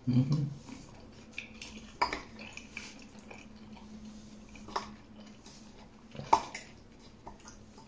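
Metal fork and spoon clinking against a plate while eating: a few separate sharp clinks, about two, five and six and a half seconds in.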